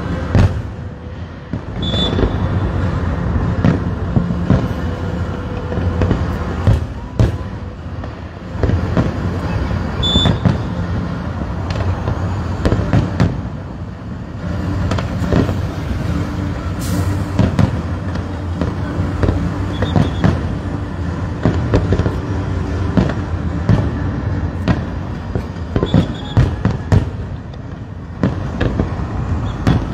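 Aerial fireworks display: many sharp bangs going off in quick succession over a continuous low rumble.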